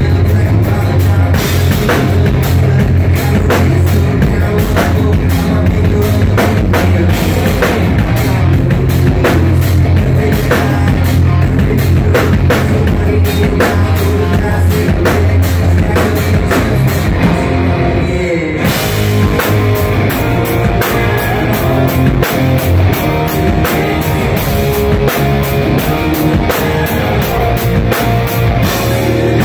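Live rock band playing loud, with electric guitars and a pounding drum kit, and a moment's break about two-thirds of the way in.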